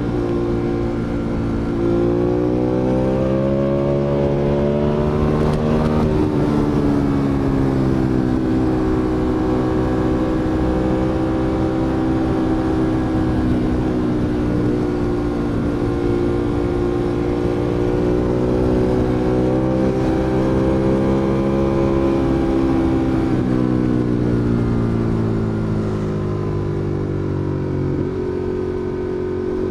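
Ducati Monster 821's L-twin engine under way. The revs climb for a few seconds, drop sharply about six seconds in, then run on at middling, wandering revs. They ease off late on and pick up again at the very end.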